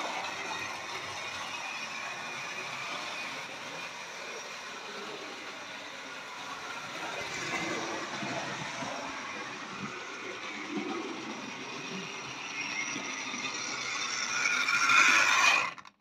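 Tri-ang Hornby Flying Scotsman model locomotive running on the layout track: a steady whirr of its electric motor with the wheels rattling along the rails. It grows louder near the end, then cuts off suddenly.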